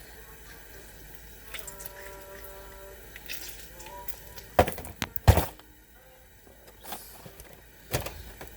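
Kitchen handling sounds: sharp knocks of dishes or utensils being set down, two close together about halfway through and one more near the end, over faint background noise.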